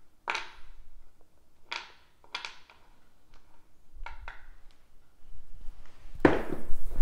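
A few light separate clicks, then a pair of dice thrown down a homemade craps table, clattering against the studded rubber back wall about six seconds in and tumbling across the felt.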